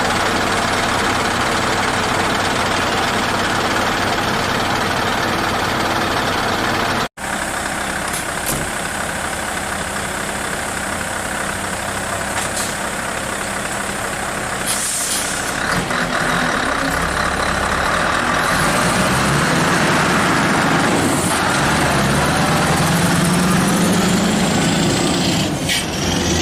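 Scania R580 truck's V8 diesel engine running under load, with a short hiss of air about halfway through. A brief dropout about seven seconds in marks a cut. In the second half the engine note climbs steadily as it pulls.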